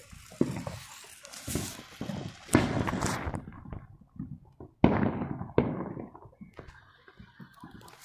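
Consumer fireworks going off in the street: a string of sharp bangs at uneven intervals, the loudest about five seconds in.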